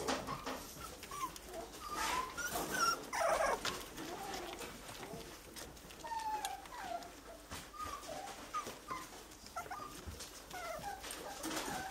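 A litter of three-week-old miniature schnauzer puppies whimpering and squeaking, many short high cries one after another, with a denser flurry about three seconds in and scattered small clicks.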